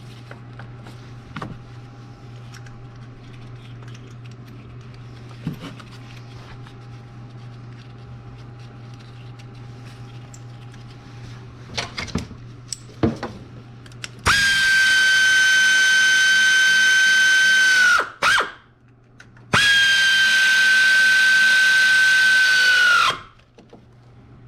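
Cordless power drill running twice at a steady speed, each run about three and a half seconds, with a high whine that dips as it winds down. A few clicks come just before it.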